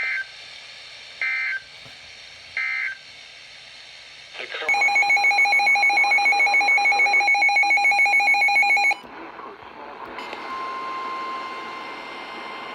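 NOAA Weather Radio alert signalling: three short bursts of SAME digital data tones about a second apart, then about four seconds of a loud, rapidly pulsing electronic alert beep, then a steady single-pitch weather radio alert tone from about ten seconds in.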